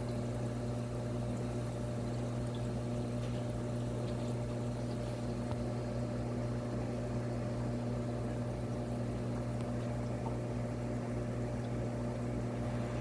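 Aquarium pumps humming steadily, with water trickling from the tank filters.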